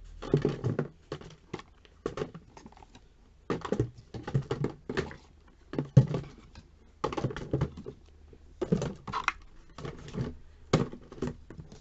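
Plastic roll-on deodorant bottles, cardboard product boxes and a glass bottle being picked up and set down on a tabletop: short runs of light knocks and clatter, a cluster every second or so.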